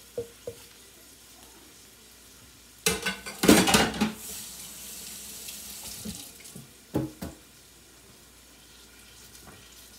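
Kitchen sink tap running for a few seconds, starting about three seconds in with a loud rush of water and trailing off, as hands are rinsed; a couple of knocks follow, over the faint sizzle of salmon frying in a pan.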